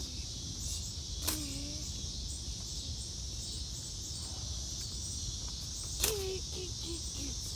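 A steady, high-pitched chorus of insects with a low rumble underneath. Two short, sharp sounds stand out, about a second in and about six seconds in.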